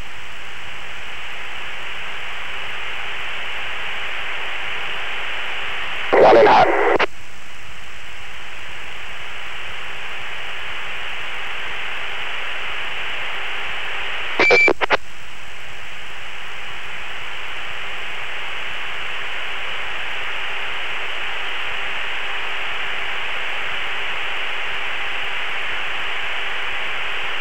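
Steady radio hiss over the cockpit radio, with a brief louder burst of transmission about six seconds in and a short click with a brief high beep about halfway through.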